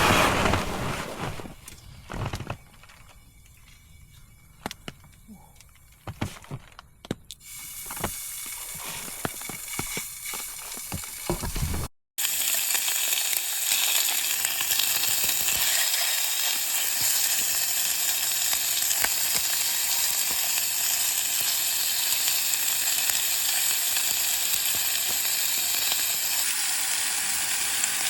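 Pork jowl meat sizzling in a hot pan: a few clicks and knocks at first, then a hiss that builds and settles into a steady loud sizzle.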